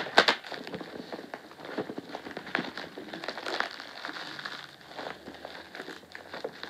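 Parcel packaging crinkling and crackling as it is pulled open by hand: a dense, irregular run of small crackles, with two sharp louder ones right at the start.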